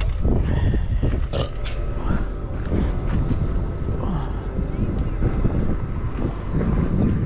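Wind buffeting the microphone, a steady low rumble, with a few knocks and clicks in the first couple of seconds as the camera is handled and set on its tripod.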